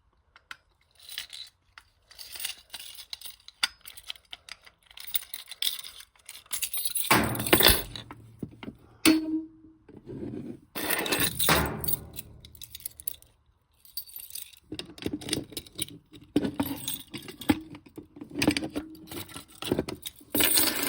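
Handling noise from unboxing: irregular scraping, rustling and clinking as a boxed electronic unit and its packaging are moved about, with louder clatters about a third and halfway through.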